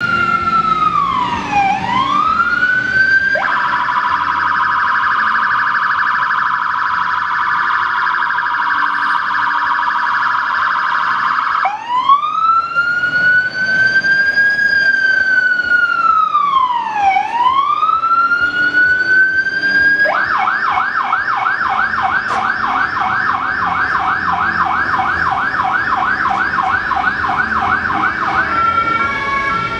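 Renault Premium fire engine's electronic siren sounding on an emergency run and cycling through its tones. It starts with a slow rising-and-falling wail and switches to a rapid warble. At about twelve seconds the slow wail returns, then a fast yelp of three to four sweeps a second, and near the end a two-tone hi-lo.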